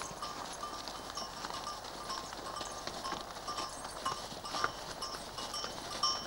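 A herd of cows walking on a gravel track: hooves clopping and crunching on stones, with cowbells clanking irregularly.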